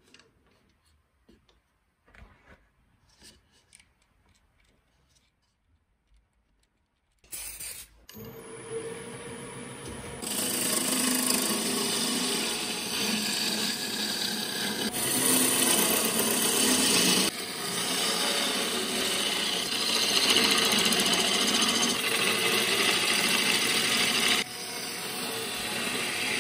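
Near quiet with a few faint knocks while the lathe is stopped; then, about seven seconds in, the wood lathe starts, and from about ten seconds a hand-held turning tool cuts the spinning apple-burl goblet stem with a steady scraping, shaving sound.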